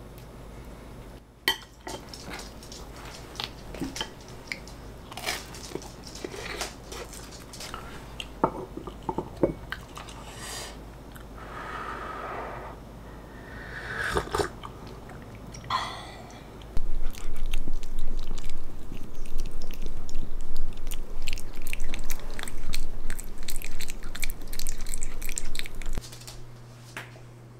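Knife and fork clicking and scraping on a ceramic plate while cutting a crisp croffle, then, from a little past halfway, close, loud crunching as the croffle is chewed, a dense crackle that cuts off abruptly near the end.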